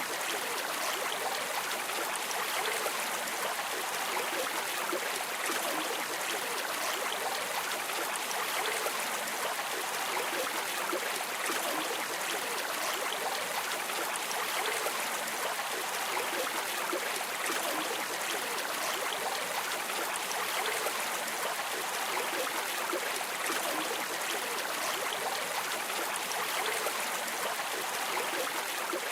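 River water flowing over stones, a steady rushing and gurgling with no pauses.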